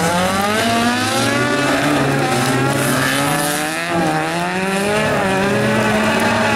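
Several race car engines revving on a dirt track, their overlapping pitches rising and falling as the drivers accelerate and lift. There is a brief dip about four seconds in.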